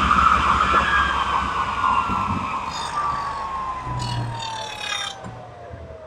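Table saw blade coasting down after being switched off at the end of a dado pass: a steady whine that falls slowly in pitch as the blade slows and the sound fades.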